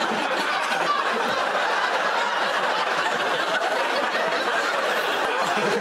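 Studio audience laughing in a steady, sustained wave.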